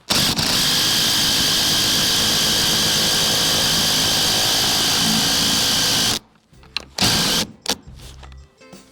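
Impact driver with a 9/16 socket hammering a greased lag bolt into a hardwood support post, running steadily for about six seconds, then a short final burst about seven seconds in to snug it down.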